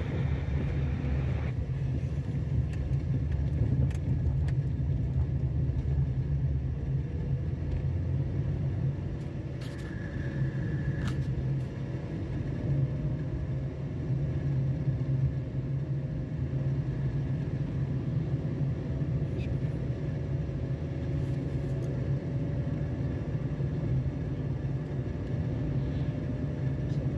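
A vehicle driving along a rough dirt track, its engine giving a steady low rumble.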